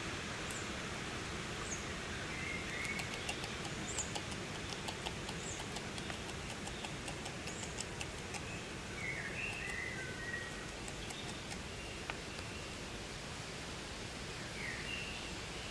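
A Eurasian beaver chewing a twig: a run of quick, crisp little clicks, thickest in the first half, over a steady outdoor hiss. Birds chirp now and then throughout.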